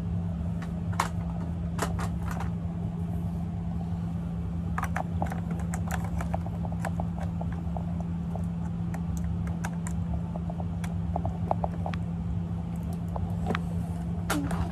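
Scattered light clicks of buttons being pressed on an old game, over a steady low hum.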